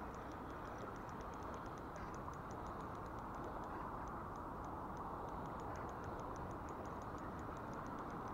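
Steady rush of flowing river water, with faint, quick, irregular high ticking above it, about five ticks a second.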